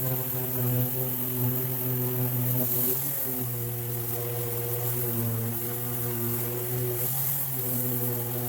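Background music: sustained chords over a steady low bass drone, changing every few seconds.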